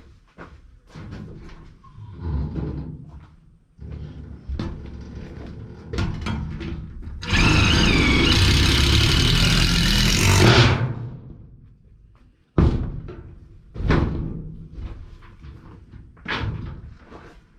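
A power drill running for about three seconds in the middle, driving a screw through the rusted sheet-metal wall of a garden shed. Knocks and rattles of the thin metal wall come before and after it.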